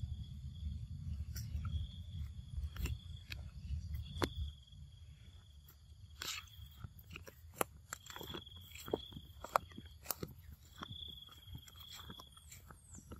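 A macaque biting and chewing raw cucumber, with scattered sharp crunches and clicks. A high steady buzz comes and goes in the background, and a low rumble fills the first four seconds.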